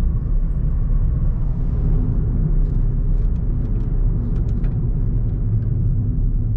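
Inside a moving Ford New Fiesta Titanium: steady low road and engine rumble, with faint, irregular little ticks and rattles from the dashboard panel, an annoying noise the owner cannot trace.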